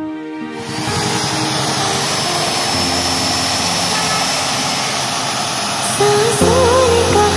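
Corded electric drill running steadily, boring through a tractor's sheet-metal fender, with a steady hiss and a faint high whine.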